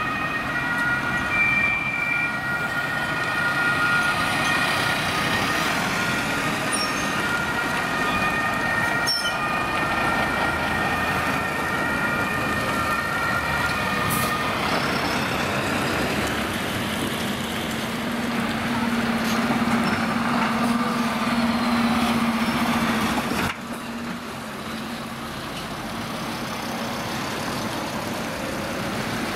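German emergency-vehicle two-tone sirens sounding as Red Cross ambulances and a truck drive past, their alternating tones stopping about halfway through. After that, engine and tyre noise of the passing vans and truck, with a steady low engine drone, and an abrupt drop in loudness near the end.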